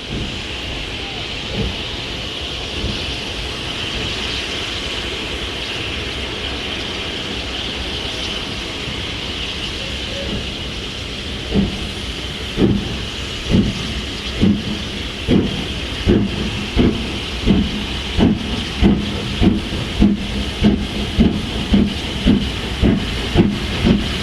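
Steam locomotive getting under way: a steady hiss of steam, then about halfway through the exhaust chuffs begin, slow at first and quickening to about two a second as it gathers speed.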